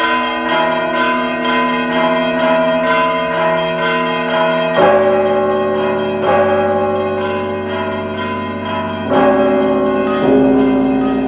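Church bells ringing together, many tones sounding over one another, with deeper bells struck anew about five, six, nine and ten seconds in.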